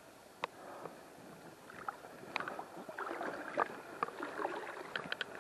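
Faint splashing and sloshing of water with scattered small clicks and knocks, getting busier about two seconds in.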